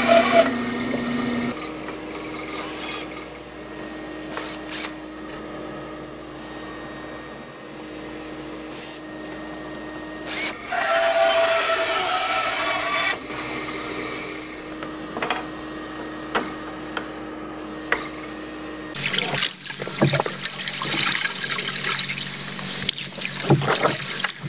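Band saw cutting wood at the start and again about halfway through, with a quieter steady hum and a few clicks between the cuts. About nineteen seconds in this gives way to a kayak paddle dipping and splashing in calm water, stroke after stroke.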